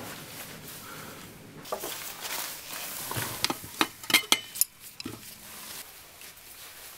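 Metal tools clinking against a metal bowl as a gloved hand picks through them, a quick run of sharp clinks a little past halfway.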